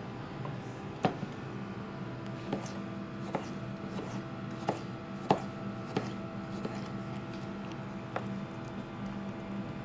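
Kitchen knife slicing through food and knocking on a plastic cutting board: about ten irregular knocks, the loudest about a second in and just past five seconds in.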